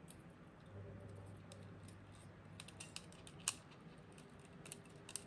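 Faint, scattered small plastic clicks and taps as an LED interior light strip is fitted into an N-gauge model train car's chassis, with one sharper click about three and a half seconds in.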